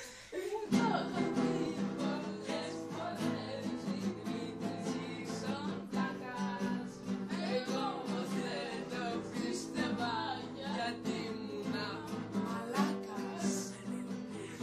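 Classical guitar strummed in steady chords, with a young man singing along; the playing starts about a second in.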